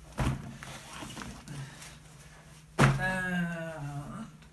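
A dull thud of a stack of paper magazines being put down, then about three seconds in a louder knock followed by a short drawn-out tone lasting about a second.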